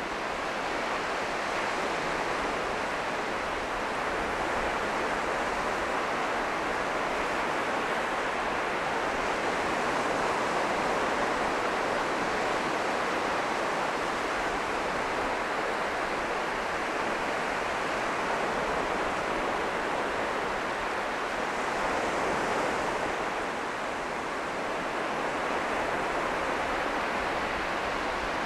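North Sea surf breaking on a pebbly sand beach: a steady rush of waves.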